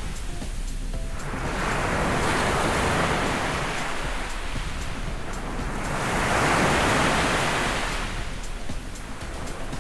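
Sea surf washing onto a sandy beach, swelling and falling back twice.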